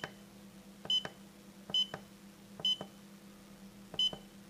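Key-press beeps from a Raddy RF-919 receiver: a front-panel button pressed five times, about a second apart, each press giving a click and a short high beep. A faint steady hum lies underneath.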